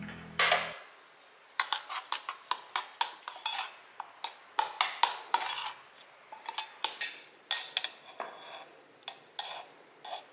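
Metal spoon clinking and scraping against a stainless steel saucepan while stirring chia seeds into berry jam, in quick, irregular taps.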